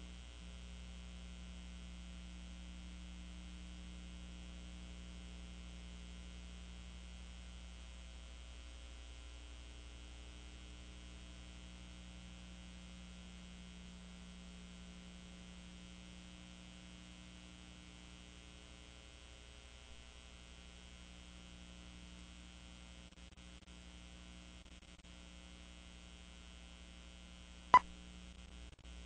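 Steady low electrical mains hum with faint hiss, and one sharp click near the end.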